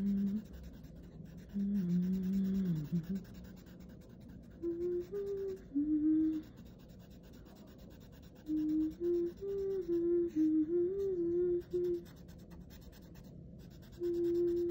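A person humming a slow, wordless melody in short phrases with pauses between them.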